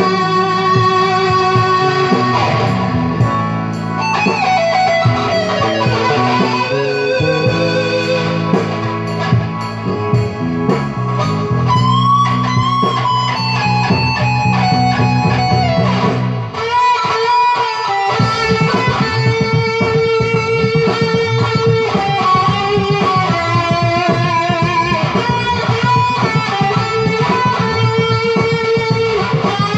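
Electric guitar playing an instrumental lead of sustained, bending notes and slides over a lower chordal and bass accompaniment. The low accompaniment cuts out for a moment just past the middle, then comes back with a quick rhythmic pulse under held lead notes.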